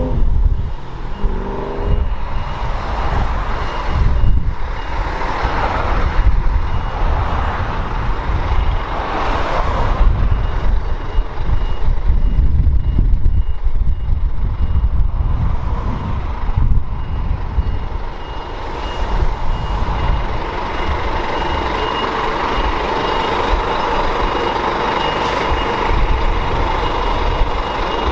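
A truck's reversing alarm beeping in an even, rapid series at one high pitch over a heavy engine rumble.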